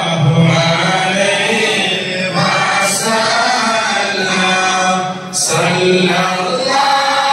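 A group of men chanting mawlid verses together in unison, with a short break about five seconds in before the chant picks up again.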